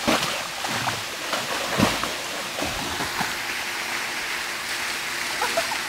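A swimmer's arms and kicks splashing through pool water in freestyle strokes: several sharp splashes in the first three seconds, then a steady hiss of churned water.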